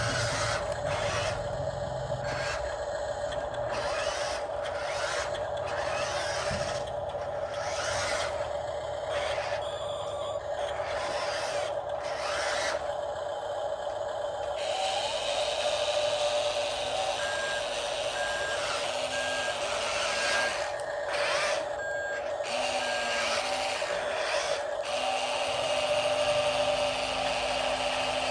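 Radio-controlled model construction vehicles working: a steady high whine from their small electric motors or pump, with repeated scraping strokes through the first half. A reversing alarm beeps about once a second for a few seconds past the middle.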